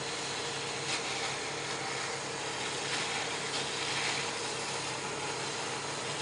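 Steady drone of a running motor-driven machine with a constant hum, overlaid by a few brief scraping sounds.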